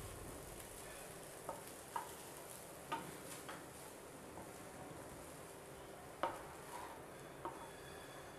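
Spatula stirring and turning rice in a nonstick kadai, with a faint sizzle and about six light knocks of the spatula against the pan.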